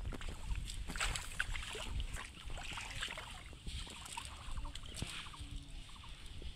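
Wind buffeting the microphone, with rustling and crackling as a cast net is gathered up in the hands.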